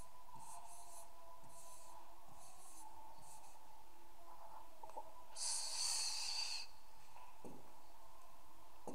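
Faint scratching of a stylus writing on a tablet screen, a run of short strokes in the first few seconds, then a longer hiss of breath about five and a half seconds in, over a steady low hum.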